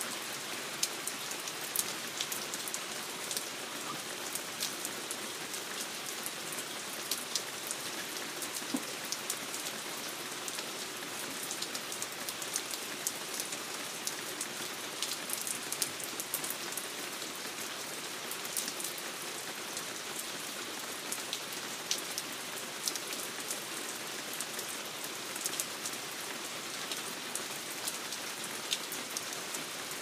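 Heavy rain falling steadily, with heavy drips coming off a deck as irregular sharp taps over the even hiss of the rain.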